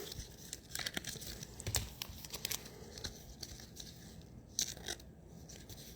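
Soft crinkling of a thin plastic card sleeve and small clicks and scrapes of a trading card being handled and slid into it.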